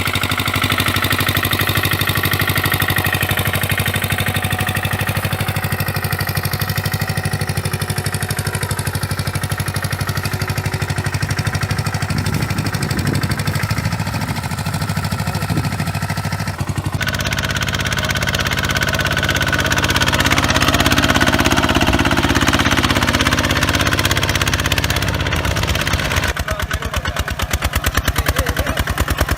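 Walk-behind tractor engines running with an even, steady beat, the sound changing abruptly about 17 seconds in and again near 26 seconds in as one machine gives way to another.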